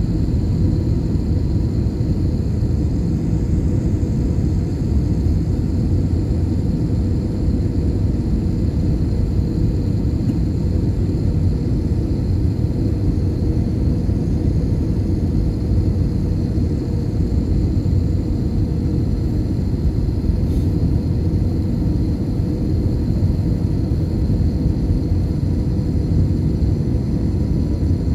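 Jet airliner on final approach, heard from inside the cabin beside the engine: a steady deep rumble of engine and airflow with a faint steady whine above it.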